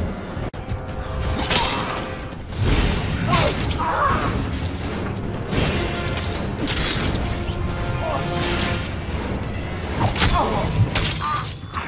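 Film fight soundtrack: dramatic score music under repeated blows, crashes and whooshes.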